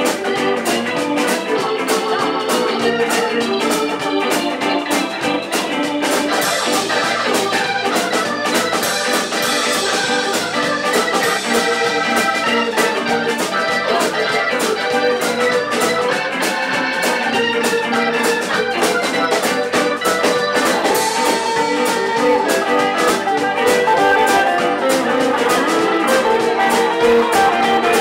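Live band playing an instrumental break in a swing/rock'n'roll number, with a Hammond XK-3 organ to the fore over electric guitars, electric bass and a drum kit keeping a steady beat.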